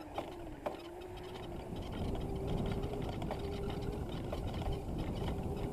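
Razor MX650 electric dirt bike's motor whining steadily while riding over grass, with two knocks in the first second and a low wind-and-ground rumble that grows louder from about two seconds in.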